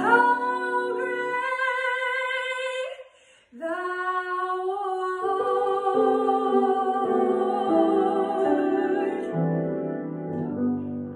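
A woman singing solo with strong vibrato over instrumental chords: a sung phrase, a brief breath, then a long final note held for several seconds. The accompaniment closes shortly after her voice stops.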